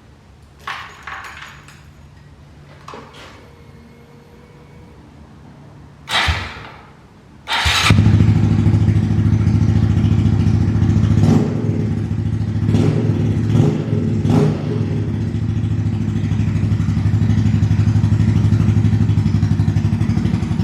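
A 2017 Honda Grom's single-cylinder engine, run off a jumper on a low battery, is cranked: one short burst about six seconds in, then a second that catches. It then idles steadily and evenly, with no knocking, and a few sharp ticks a few seconds after it starts.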